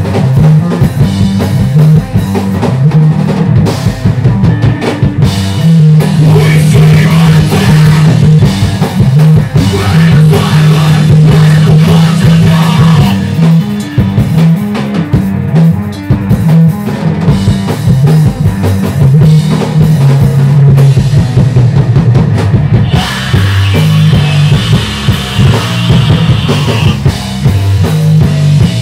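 Live math rock played loud on electric guitar and drum kit: busy drumming with cymbals under a low guitar riff that shifts note constantly.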